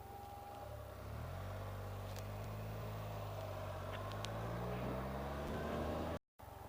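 Can-Am Spyder RT's three-cylinder engine ticking over, then pulling away about a second in and accelerating, its pitch rising steadily for several seconds. The sound drops out for a moment near the end.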